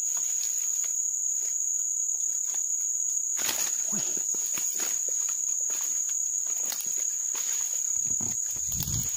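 Steady, shrill chorus of insects droning on one high pitch without a break, the loudest sound throughout. Over it, dry reeds and grass rustle and crackle now and then as someone moves through them, most clearly a few seconds in.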